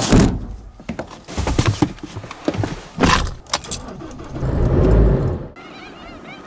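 A vehicle's canopy window bangs shut, then a bunch of keys jangles at the ignition and the engine cranks and starts about four and a half seconds in. After a sudden cut near the end, birds chirp faintly.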